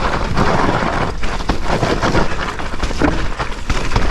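Electric mountain bike riding down a steep, rough, muddy forest singletrack: a steady rush of tyre noise with frequent knocks and rattles from the bike over roots and stones.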